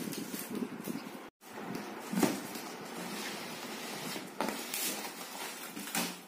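Cardboard carton being opened by hand: packing tape tearing and cardboard flaps rustling and scraping, with a few louder rips.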